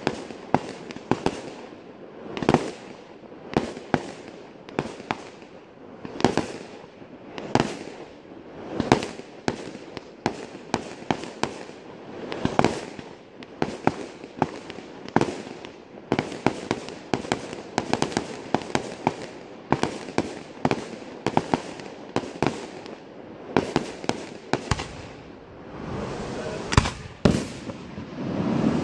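Fireworks display: aerial shells launching and bursting in quick succession, a steady run of sharp bangs a second or less apart, each with a short echo.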